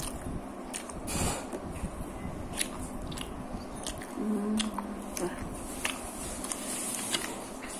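A person chewing a mouthful of sushi close to the microphone, with scattered short mouth clicks and smacks and a brief hummed "mm" a little after four seconds in.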